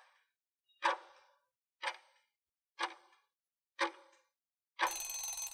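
Countdown timer sound effect ticking once a second, five ticks, then a longer, harsher sound about two-thirds of a second long near the end as the countdown runs out.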